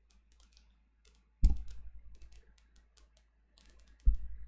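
Scattered light clicks and taps, as of a computer keyboard being used, with two louder knocks about a second and a half in and near the end.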